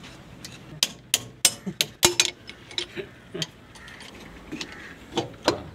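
Metal spanners clicking and clinking against the fuel-injection pipe fittings of an old diesel engine as they are worked loose: a dozen or so sharp, irregular knocks, the loudest about two seconds in and again near the end.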